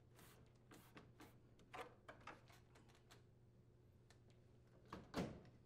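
Faint plastic clicks and taps of a microwave door trim being pressed and snapped back onto the door, with one louder knock about five seconds in; otherwise near silence.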